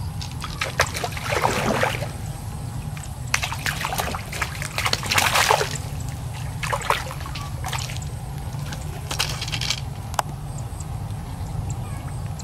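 Water splashing and sloshing in irregular bursts, the longest about four to six seconds in, over a steady low rumble.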